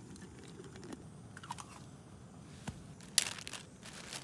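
Crinkling and crunching handling noises: a few light clicks, then a sharper, louder crunch about three seconds in.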